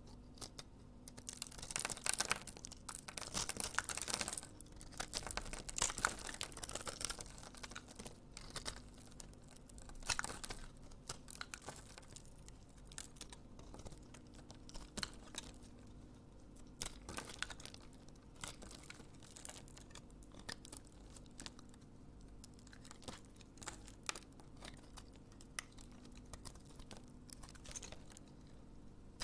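A knife cutting a bar of soap into cubes: crisp crackling cuts in dense clusters, heaviest in the first several seconds, then lighter scattered clicks and taps.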